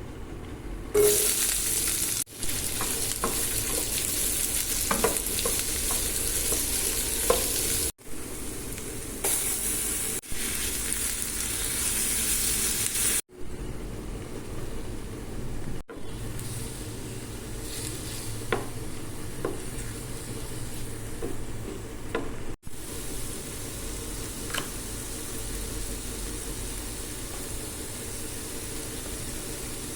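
Hot oil sizzling in a cooking pan as ingredients for ginger chicken fry, with a few light taps of a stirring utensil. The sizzle is louder in the first half and cuts off briefly several times.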